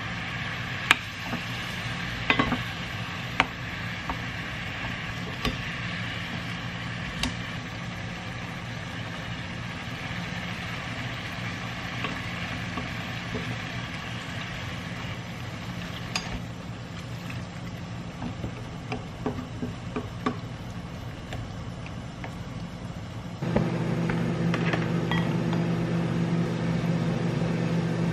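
A pot of spicy stew simmering on a portable gas burner, with a steady low hum and scattered sharp clicks of a wooden spoon knocking against the pot as it is stirred. About 23 seconds in, a louder steady hum starts abruptly.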